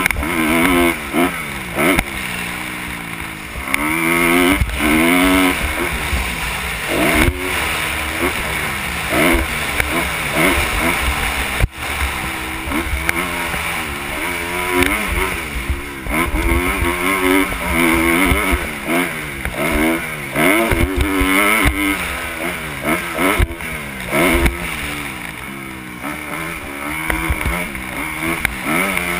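Kawasaki KX250 motocross bike engine revving up and falling back again and again as the rider accelerates, shifts and backs off around the track, heard from the helmet with wind noise over it. A sharp knock stands out about twelve seconds in.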